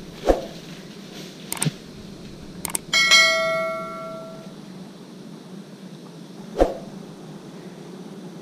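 A metallic bell-like ring about three seconds in, dying away over a second and a half. A couple of short clicks come before it, and a dull thump falls at each end.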